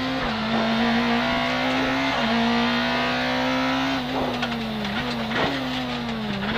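Corsa kit car's rally engine running at high revs, heard from inside the cockpit. Its pitch drops sharply on an upshift right at the start, climbs slowly, then falls with two quick jumps up from downshifts near the end. Each gear change of the Sadev sequential gearbox is marked by a sharp clack.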